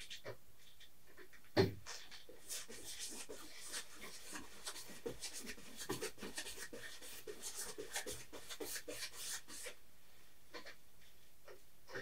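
Bristle brush scrubbing and dabbing thick oil paint onto canvas: a quick, irregular run of short scratchy strokes. A single knock comes about one and a half seconds in.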